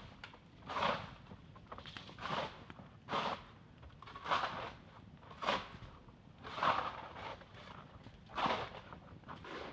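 Footsteps crunching through snow at a slow walk, about one step a second.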